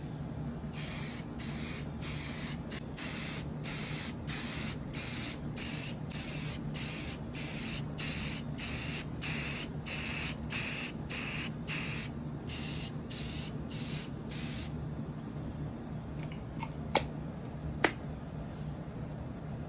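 Aerosol can of filler primer spraying in a quick series of short hissing bursts, stopping about 15 seconds in, followed by two sharp clicks.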